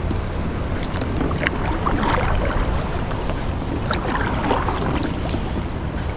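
Kayak paddle dipping and splashing in river water over several strokes, over a steady rush of water.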